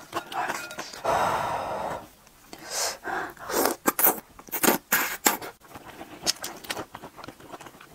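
A person slurping noodles and broth from a spoon close to a clip-on microphone: a long slurp about a second in, then a run of quick wet slurps and smacks, and softer chewing near the end.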